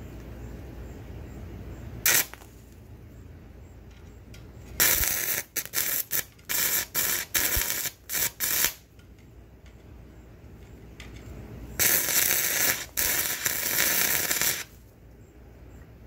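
Stick-welding arc from an E6013 rod fed by three 12-volt batteries in series, crackling and sizzling. A brief strike about two seconds in, then an arc that catches and breaks off again and again for about four seconds, then a steadier run of a few seconds near the end.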